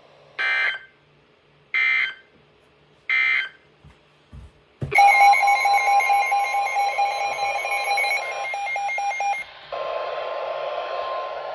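Emergency Alert System activation: three short identical SAME header data bursts about 1.3 seconds apart, then the two-tone EAS attention signal starting about five seconds in and holding steady. Near the end the tone continues under a layer of hiss.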